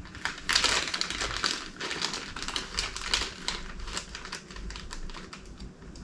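Rapid, irregular small clicks and scratchy scraping from hand work on small car parts, a gasket and oil seal being fitted to a differential end cover. The clicking is densest in the first second and a half.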